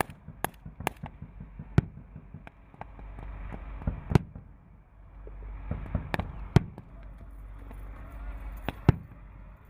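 Sporadic gunfire from a field exercise: about a dozen single rifle shots at irregular intervals, a few close together, over a low steady rumble.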